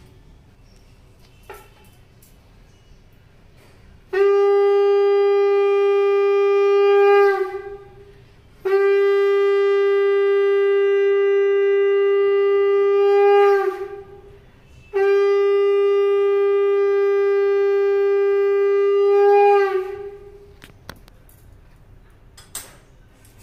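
Conch shell (shankha) blown three times in long, steady, horn-like blasts, each held for about four to five seconds and tailing off with a brief wavering drop in pitch.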